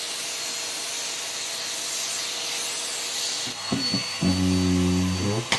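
Henry vacuum cleaner running with a steady rushing hiss, which stops about three and a half seconds in. A short low, steady tone follows for about a second.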